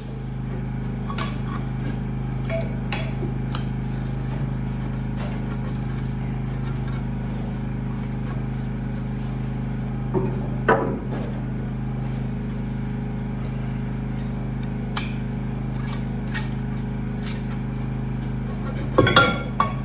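Scattered metal clinks and knocks of tools and engine parts being handled, over a steady low hum. The loudest knocks come about eleven seconds in and near the end.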